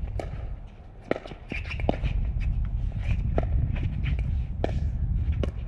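Pickleball rally: sharp pops of paddles hitting the plastic ball, irregular and roughly once a second, over players' footsteps and a low rumble.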